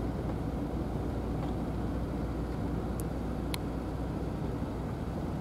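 Steady low outdoor rumble, even in level throughout, with two faint sharp clicks about three and three and a half seconds in.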